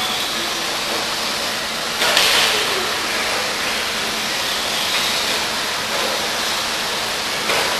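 Radio-controlled off-road buggies racing on the track: a steady hiss of motors and tyres, with one car's whine falling in pitch as it passes about two seconds in.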